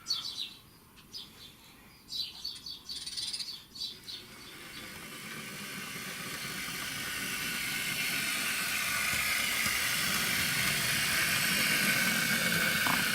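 Recorded birdsong chirping for the first few seconds, then the running noise of a model train, a steady whir with a faint high hum, growing steadily louder as it approaches.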